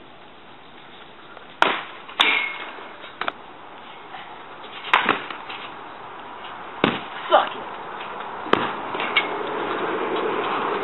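A series of irregular sharp knocks and clatters, about eight in all, over a background hiss that grows louder near the end.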